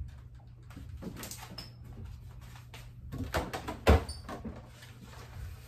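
Rummaging in an open refrigerator: scattered clicks and knocks of things being moved on its shelves, with a cluster of knocks and one sharp knock about four seconds in.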